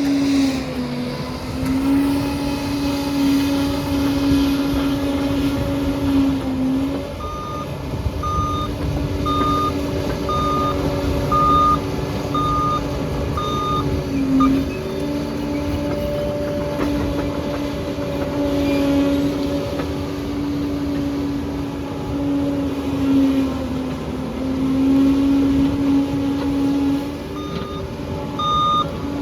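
Liebherr bulldozer's diesel engine running under changing load, its pitch dipping and rising several times. Its reversing alarm beeps about once a second for several seconds in the middle, and starts again near the end as the dozer backs up.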